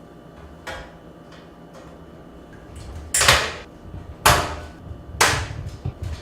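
Sheet-metal I/O shield being pushed into the PC case's rear port opening: a faint click, then three sharp snaps about a second apart, each with a brief ring, as it pops into place.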